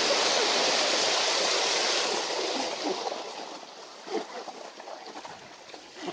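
A large volume of water gushing out of a plastic-lined pickup truck bed and pouring onto the grass, loud at first, then dying away to a thin trickle about three seconds in.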